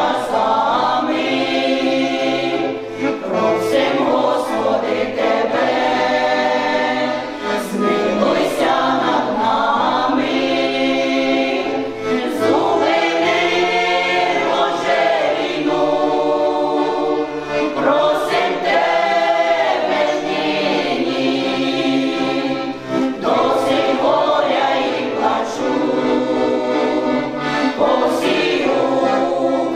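Amateur folk choir of women's and men's voices singing a slow Ukrainian song together, held notes changing every second or two.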